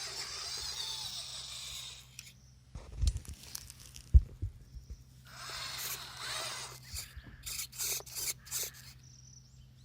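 WPL C24 RC truck's small electric motor and gears whirring in bursts, with a couple of heavy knocks a few seconds in and a run of clicks and scrapes near the end.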